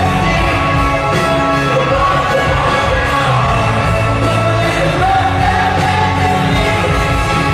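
Loud music with a singing voice holding long notes over a steady band accompaniment.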